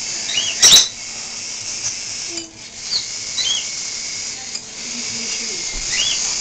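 Small cage birds giving short, scattered chirps over a steady hiss of room noise, with one sharp clatter under a second in.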